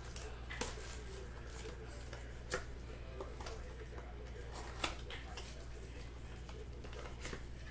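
Foil trading-card pack wrappers crinkling and cards being handled, with sharp crackles about half a second in, around two and a half seconds and near five seconds, over a steady low hum.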